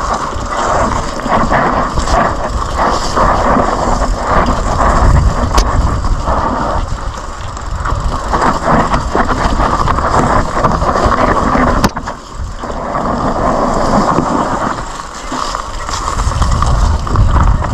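Mountain bike riding fast down a dry dirt trail: knobby tyres rumbling and crunching over dirt and ruts, the bike rattling over bumps, with wind on the microphone. A couple of sharp clicks stand out, about six and twelve seconds in.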